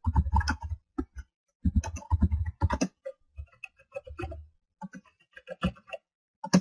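Computer keyboard typing: irregular runs of key clicks, dense for the first three seconds and then sparser, with short pauses between them.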